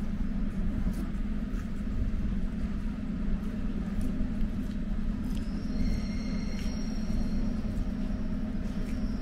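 Parked electric commuter train humming steadily at the platform, with a faint high whine of a few tones about halfway through.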